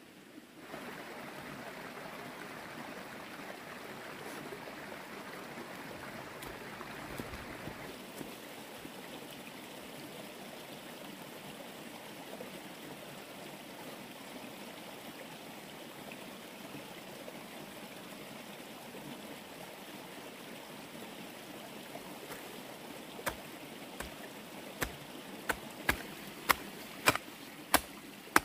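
A steady rushing noise. Near the end it is joined by a run of sharp strikes, a little more than one a second, each louder than the last.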